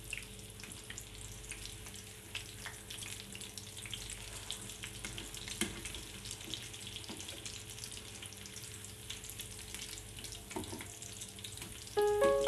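Breaded chicken pieces shallow-frying in hot oil in a pan: a steady, fairly quiet sizzle with scattered crackling pops.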